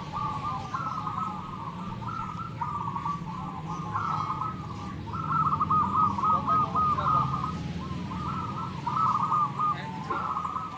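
Many zebra doves (perkutut) cooing together, their rolling phrases overlapping without a break. About five seconds in, one bird gives a quick run of repeated notes, the loudest part.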